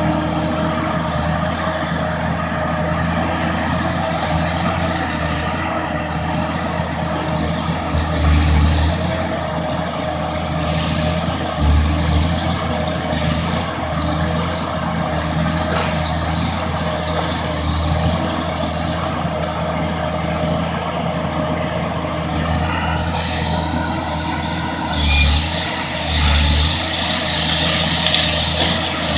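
Timberjack forestry harvester's diesel engine running steadily with a constant whine over it, swelling briefly about four times. Near the end a higher hissing noise joins in.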